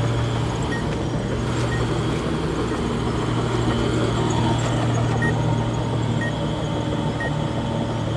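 Bulldozer's diesel engine running steadily, with short high beeps about once a second from a reversing alarm.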